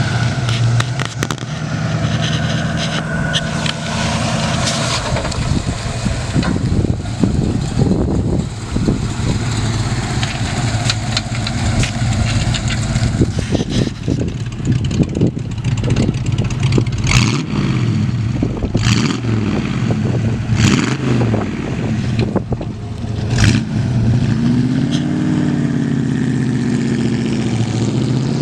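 1965 Mustang's 289 cubic-inch four-barrel V8 running steadily, then accelerating away, its note rising and falling several times as it pulls through the gears, with a few sharp cracks in between.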